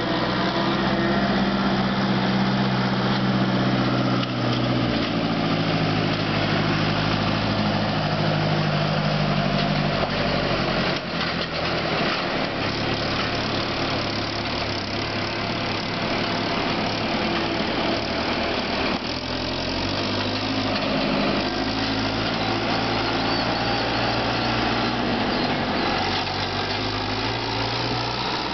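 Farm tractor engine running steadily under a constant rush of noise, its note shifting a few times.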